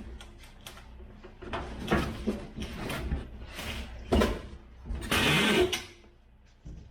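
A string of knocks and clicks, with a longer scraping rasp about five seconds in, then a quieter stretch near the end.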